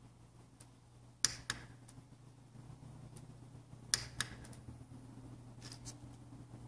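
Switches on a strobe light control box clicking: three pairs of short, sharp clicks, the last pair fainter, over a low steady hum.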